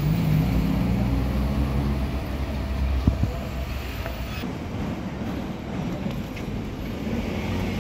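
Street traffic: a motor vehicle's engine running close by for about the first three seconds, then a steady traffic hum. There is a short knock about three seconds in.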